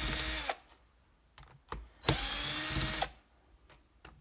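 A handheld cordless power driver runs in two short bursts, backing out screws from a power-tool housing. The first burst stops about half a second in and the second lasts about a second. Small clicks of handling fall between them.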